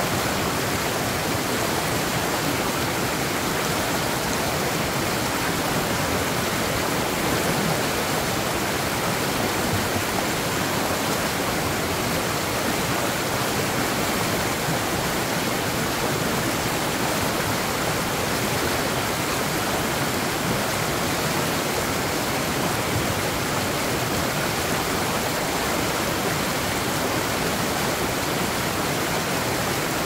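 Small waterfall on a rocky mountain stream pouring into a pool: a steady rush of falling water.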